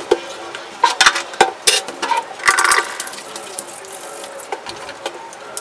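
Sharp clicks and light clatter of small objects being handled and set down, several in quick succession about a second in, with a short rustling hiss near the middle.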